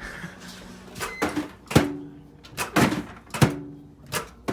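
A string of sharp knocks and clanks, about eight in four seconds, several leaving a brief ring.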